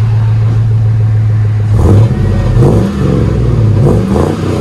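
2001 GMC Yukon XL's 5.3-litre V8 exhaust through a single 14-inch Magnaflow muffler, 3-inch in and 3-inch out: a steady deep idle, then from just under two seconds in the engine is revved in several quick blips.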